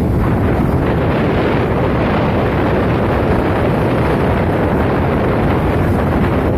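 Steady, loud wind buffeting the microphone, with sea surf washing beneath it.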